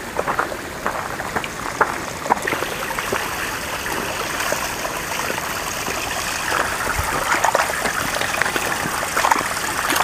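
Shallow water running steadily along a narrow stone-lined channel, with scattered small clicks. It grows a little louder in the second half.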